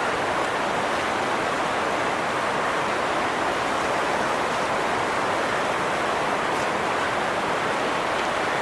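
River water rushing over rocks in a steady, unbroken roar.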